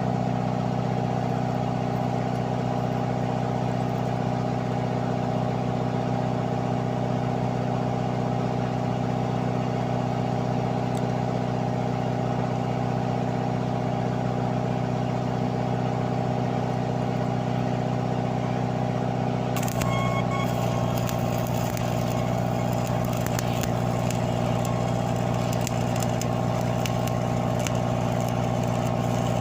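An engine running at a steady speed with an even drone. About twenty seconds in, a crackling hiss joins it and continues.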